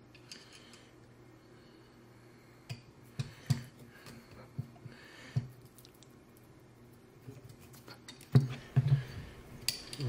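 Scattered light metallic clicks and taps of an Allen key and small screws being worked into the clamp of a Hapstone RS knife sharpener, with a couple of louder knocks near the end.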